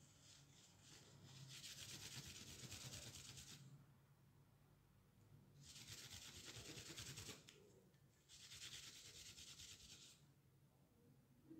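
A wad of paper towel rubbing metal polish over the column of an old metal candlestick, in three spells of quick back-and-forth scrubbing. The sound is faint.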